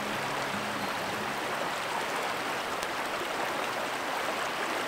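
River water running over a shallow cobble riffle: a steady rushing. Background music fades out about a second and a half in.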